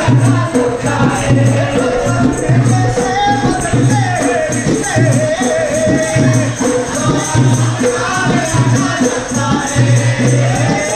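Maldivian bodu beru drumming: large hand-beaten barrel drums keep a steady low beat, roughly once a second, under group singing, with a fast light rattle on top.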